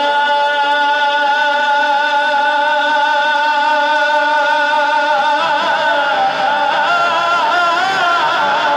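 A male voice holds one long sung note of a Punjabi naat with a slight waver for about five seconds. Near the end it winds up and down in ornamental turns.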